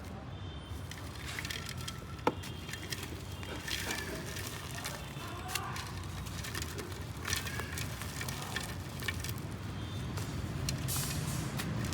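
Dry charcoal-black clay mud crumbling, with an irregular run of crackles and crunching ticks and one sharp snap about two seconds in, over a steady low background rumble.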